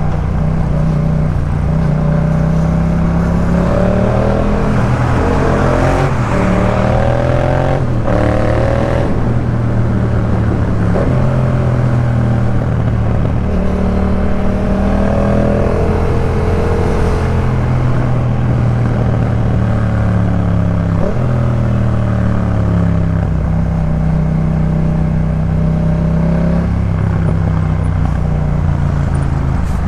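Yamaha MT-07's 689 cc parallel-twin engine through a Jeskap K4 full aftermarket exhaust, pulling under load. Its pitch climbs and then falls back sharply several times as the bike accelerates and shifts up through the gears.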